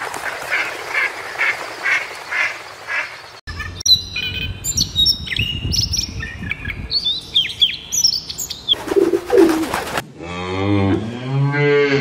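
A flock of mallard ducks quacking in a quick steady rhythm, then an American robin singing short chirping phrases, and near the end a Holstein cow giving a long low moo.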